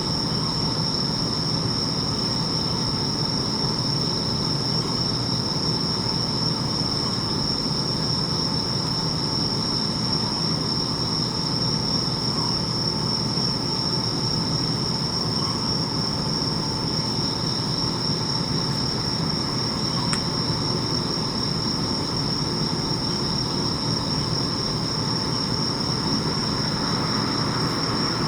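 Bell crickets (suzumushi) singing continuously in a steady high chorus, over a steady low background rumble.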